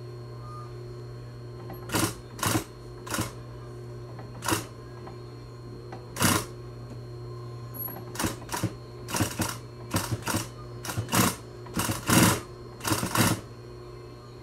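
Industrial sewing machine stitching in short bursts as the fabric is turned around a curve, over a steady hum. The bursts are spaced out at first and come quickly one after another from about eight seconds in.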